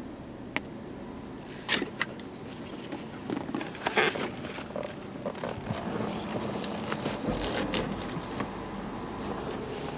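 Scattered clicks and short scraping noises over a steady low hum, the sharpest clicks about two seconds and four seconds in.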